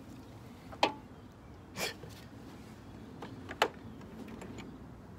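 Sharp clicks from hand tools being handled, once about a second in and again about three and a half seconds in, with a short breathy sniff near two seconds in.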